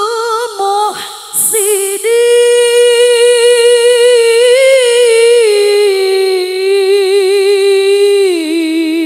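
A woman's solo unaccompanied chant into a microphone: long held notes with a wavering vibrato, a short break for breath a little over a second in, then one long drawn-out line that steps down in pitch near the end.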